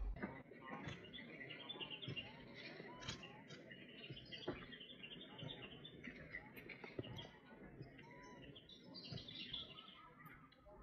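Faint, dense high-pitched chirping and squeaking, with a few short sliding squeaks lower down and a couple of soft clicks.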